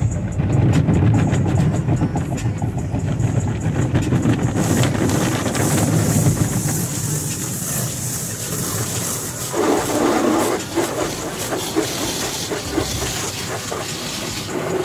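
Automatic car wash heard from inside the car: water spray hissing and drumming on the windshield and body over the low rumble of the wash machinery. The spray gets louder about four seconds in.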